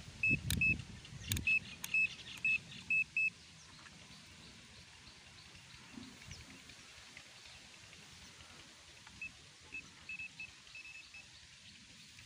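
ANENG SZ08 digital multimeter in its non-contact voltage (NCV) mode beeping in short high beeps, the sign that it is sensing the electric field of a live wire. A rapid run of about eight beeps, with clicks of the rotary selector switch and handling, comes in the first few seconds. Fainter scattered beeps follow later.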